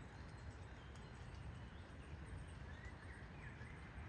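Quiet forest ambience: a steady low background rumble with a few faint high ticks, and faint brief chirps about three seconds in.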